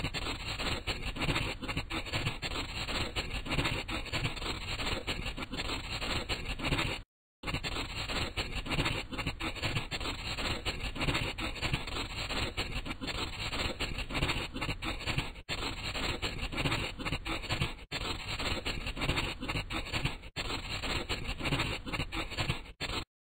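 Scratchy scribbling of colouring-in, a steady rubbing scratch like a drawing tool worked back and forth on paper. It drops out briefly about a third of the way in and stops just before the end.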